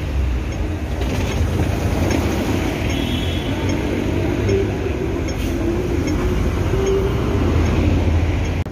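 Double-decker bus driving past close by and pulling away, its engine a steady low rumble over street traffic noise.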